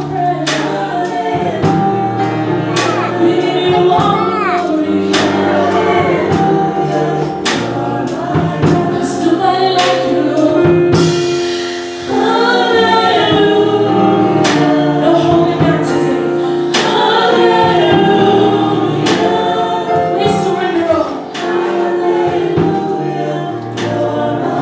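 Gospel choir singing with band accompaniment, a drum keeping a steady beat under the voices.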